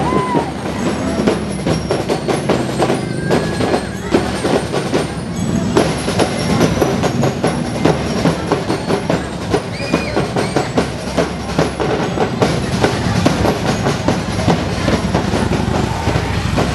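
Loud music with a steady drum and percussion beat, over a busy background din.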